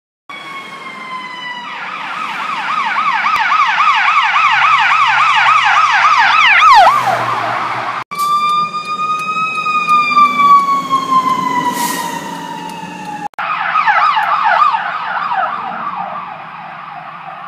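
Electronic emergency-vehicle sirens in three edited clips: a fast yelp that ends in a quick downward sweep, then a slow wail rising and falling after a sudden cut about eight seconds in, then the fast yelp again after another cut about thirteen seconds in, growing fainter near the end.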